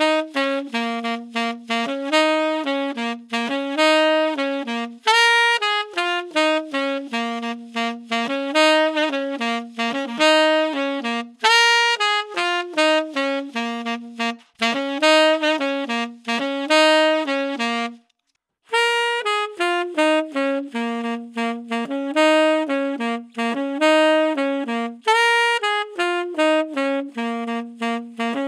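Tenor saxophone playing a fast jazz line of short notes, recorded dry with no reverb or EQ through an Electro-Voice RE320 dynamic microphone. About 18 seconds in the playing stops for under a second, then the line starts again through an Electro-Voice RE20.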